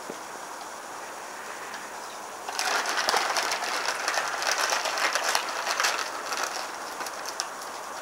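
Crisps being eaten from a packet: loud, dense crackling and crunching that starts about two and a half seconds in and lasts about four seconds, over a steady background hiss.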